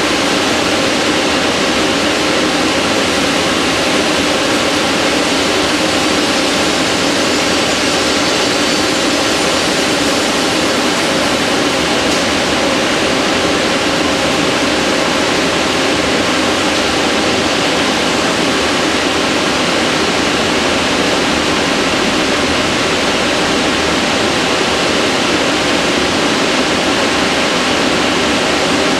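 Victor Taichung Vturn-V24W vertical turning center machining a wheel: a loud, steady rushing noise with faint steady tones.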